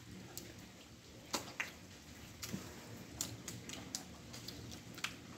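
Scattered light water drips and small splashes on wet ground: irregular sharp ticks, often a second or so apart, over a faint low rumble.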